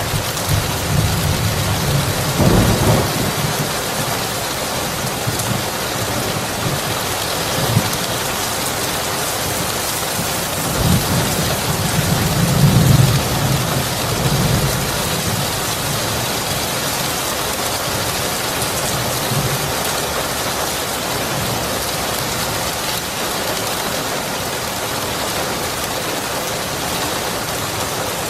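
Steady heavy rain hissing, with deep rolling thunder rumbling a couple of seconds in and again through the middle, then a weaker rumble later as the thunder fades.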